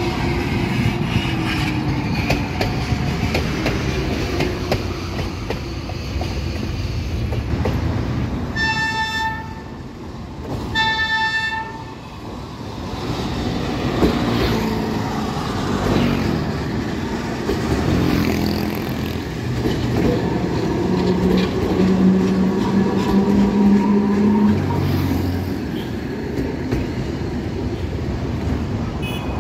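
Alexandria Raml trams passing along the track, a continuous rumble of wheels on rail. Two short horn toots, each about a second long, sound about nine and eleven seconds in, and a steady low hum comes for a few seconds later on.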